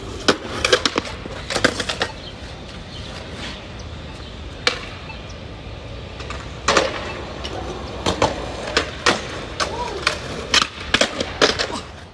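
Skateboard on concrete: wheels rolling, with many sharp clacks of the deck and wheels striking the ground as tricks are popped and landed. The clacks come in quick clusters, thickest in the second half.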